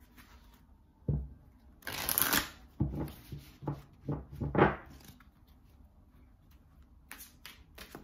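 A deck of oracle cards shuffled by hand: a run of papery swishes and slaps through the first five seconds, the loudest about two seconds in, then a few faint light taps near the end.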